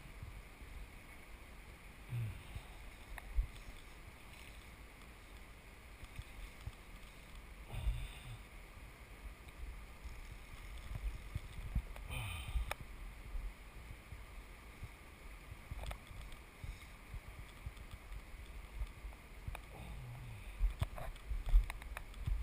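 Steady rush of river water, with wind buffeting the microphone in low gusts and a few scattered short knocks.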